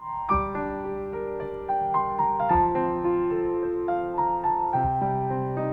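Piano playing a slow, gentle instrumental introduction: a melody over deep bass notes struck about every two seconds.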